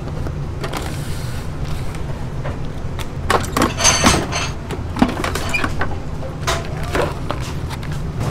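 Kitchenware clinking and clattering over a steady low hum, with a bright ringing metallic clink about four seconds in and a sharp knock just after.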